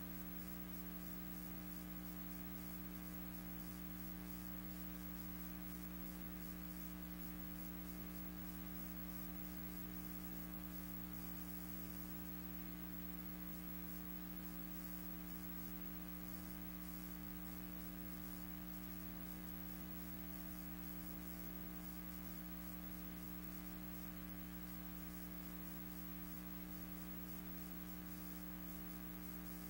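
Steady electrical mains hum with a faint hiss, unchanging, with no other sound: the background noise of a silent archival film soundtrack.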